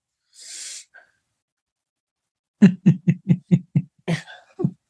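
A man's voice making a quick run of short voiced sounds, about five a second, starting a couple of seconds in, after a brief breathy hiss.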